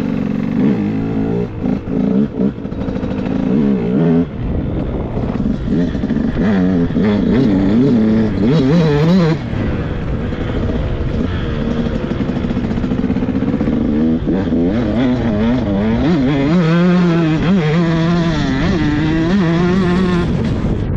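KTM SX 125 two-stroke single-cylinder motocross engine revving up and down while being ridden, its pitch rising and falling again and again. The revs drop briefly a couple of times in the first few seconds, and waver quickly up and down in the second half.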